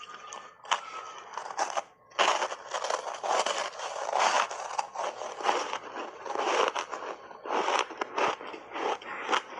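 Ice coated in matcha milk powder being bitten and chewed, a dense run of crunching and scraping. There is a short lull about two seconds in, after which the crunching runs on almost without a break.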